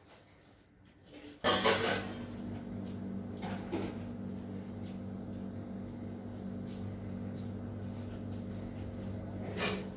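A sudden loud clatter about a second and a half in, then a steady low electrical hum inside the café, with a few light knocks and clinks.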